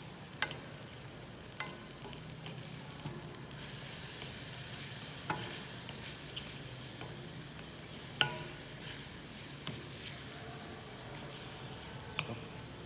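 Minced onion and garlic sizzling in hot olive oil as they are stirred in the pan, with a few sharp clicks of the stirring utensil against the pan, the loudest about eight seconds in.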